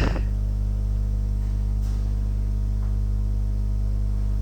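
Steady low electrical hum, mains-type, with a stack of even overtones, and a faint tick about two seconds in.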